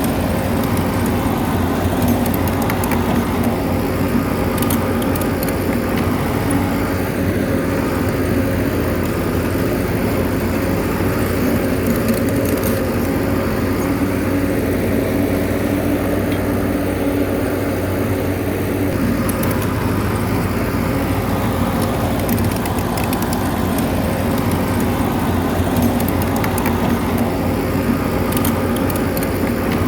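Bulldozer's diesel engine running steadily under load, with light clicks now and then.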